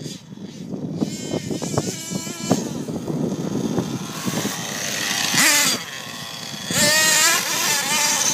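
Small nitro engine of a Thunder Tiger Sledgehammer S50 RC monster truck running and revving hard, its high pitch rising and falling as the throttle is worked. There are two loud surges, about five and seven seconds in.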